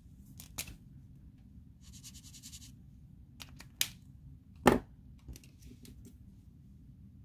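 Plastic alcohol ink markers clicking and knocking against each other and on the desk mat as they are handled and set down. There are a few sharp clicks, a short rapid rattle about two seconds in, and the loudest knock about two-thirds of the way through.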